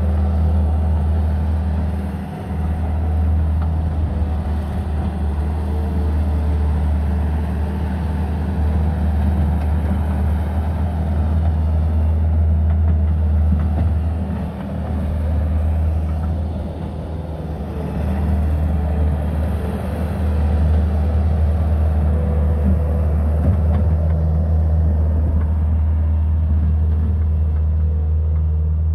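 Bobcat skid-steer loader's diesel engine running steadily as the machine levels dirt with its bucket. Its deep hum dips briefly a few times.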